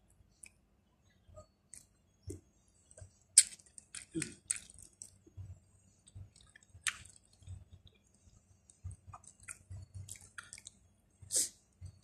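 A person chewing a breaded chicken nugget with the mouth close to the microphone: irregular short crunching and clicking noises, a few much louder than the rest.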